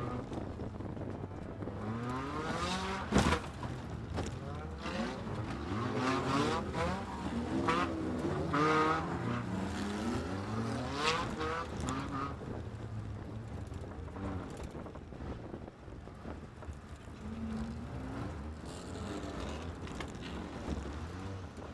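Scrap-rally race car's engine heard from inside the cabin, revving up and falling back repeatedly, with one sharp bang about three seconds in; in the second half it runs quieter and steadier.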